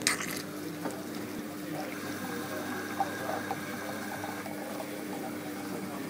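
TopBrewer coffee machine brewing a cappuccino: a steady pump hum with liquid filling sounds. A sharp knock comes right at the start, with a few light clicks later.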